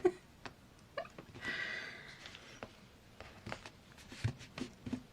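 Paper being handled at a craft desk: a short rustle about a second and a half in, with scattered soft taps and clicks of paper and tools on the table.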